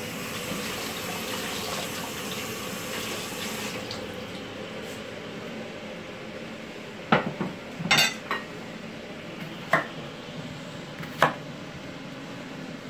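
Kitchen tap running as a cucumber is rinsed under it, stopping after three or four seconds. Later come about six sharp knocks of a knife cutting through the cucumber onto a wooden chopping board.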